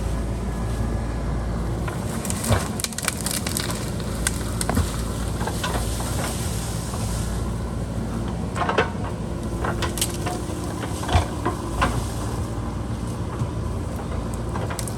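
JCB backhoe loader's diesel engine running steadily, with repeated sharp cracks and crunches of earth and stone as the bucket cuts into the wet hillside, the loudest snaps coming a few seconds apart in the middle.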